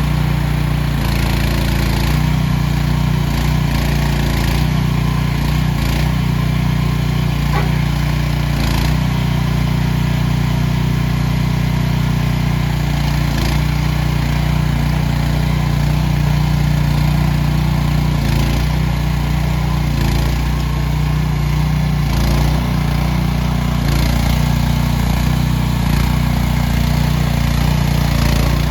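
AGT H15 mini excavator's small engine running steadily, its note shifting slightly now and then, with a few light knocks.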